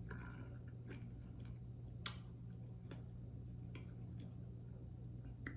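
Faint, scattered mouth clicks and lip smacks of someone eating okra soup with cornmeal fufu, a few irregular ticks over a steady low hum.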